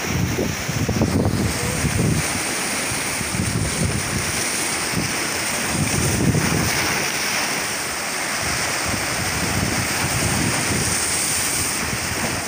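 Sea waves washing and breaking against shoreline rocks, with wind buffeting the microphone in gusts.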